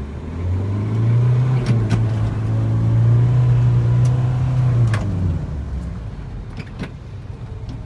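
1992 Mazda Bongo Brawny micro truck's engine, heard from inside the cab as it pulls away. The engine note climbs in the first second and holds steady, then drops off about five seconds in to a lower rumble. A few sharp clicks and knocks come through along the way.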